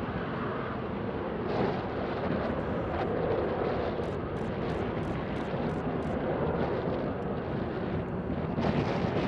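Jet aircraft noise: a steady rushing rumble with a faint constant hum under it.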